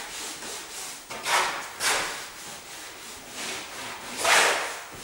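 Cloth rag rubbed hard across planed wooden wall boards, working a wood finish into the grain: a few long scrubbing strokes, the loudest near the end.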